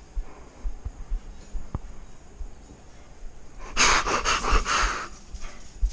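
A person's loud, wheezy heavy breathing, one long rasping burst about four seconds in, with fainter breaths before and after it.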